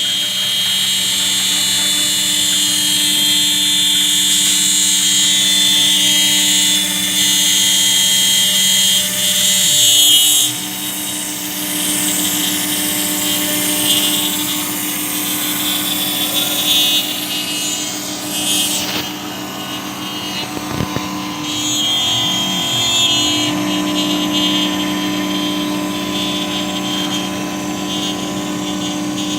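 CNC router spindle running with a steady whine as it cuts plastic sheet; its tone and loudness shift about ten seconds in.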